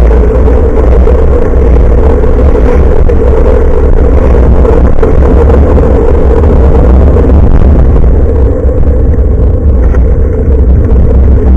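Loud, steady wind and road rumble picked up by the built-in microphone of a Nikkei Extreme X6 action camera hanging from a bicycle's handlebars while riding, with a constant hum running through it. It eases a little about nine seconds in.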